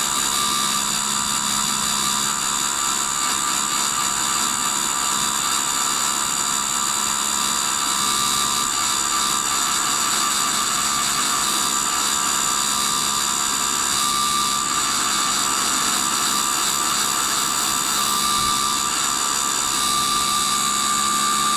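Reinforced abrasive cutoff wheel on a tool and cutter grinder grinding through a spinning high-speed steel tool blank held in the motorized work head, under slow feed: a steady grinding hiss over the even hum and whine of the wheel and work-head motors. The whine strengthens about two-thirds of the way in.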